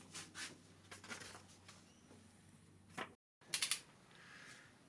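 Faint metallic clicks and taps of hand tools being handled on an engine block, with a short quick run of louder clicks about three and a half seconds in.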